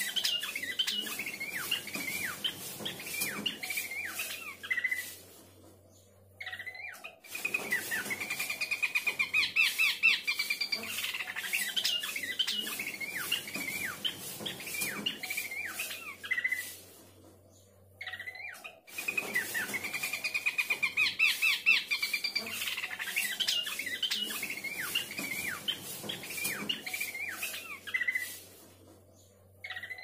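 Pelanduk semak babbler singing: long runs of rapid chirping and whistled notes. The song breaks off twice, at about 5 s and 17 s in, before starting again.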